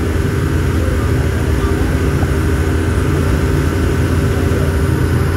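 Motor boat's engine running steadily at cruising speed, a low, even drone, over the rushing of the churned-up wake.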